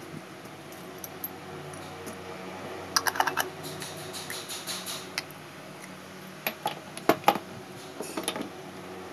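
Small glass jars with metal screw lids, a steel spoon and a small steel bowl, and dry pet treats being handled: scattered light clicks and clinks, with a busy patch of rattling clicks from about three to five seconds in and a few sharper clinks around seven seconds.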